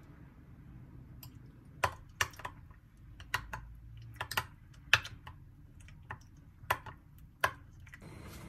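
A dozen or so sharp, irregular clicks and taps of hard objects, spread unevenly over about six seconds, over a faint low hum.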